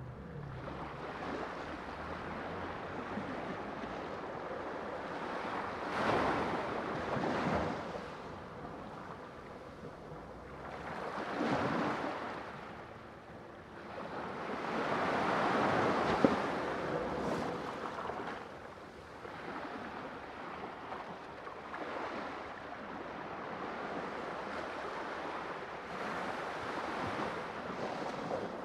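Sea surf: waves swelling and breaking in slow surges a few seconds apart, with a steady wash of water between them.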